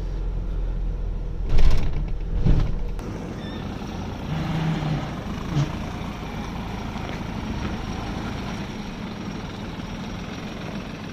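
Truck engine running with a steady low rumble, with two loud sharp knocks or bursts about a second and a half and two and a half seconds in; after that it runs on more quietly.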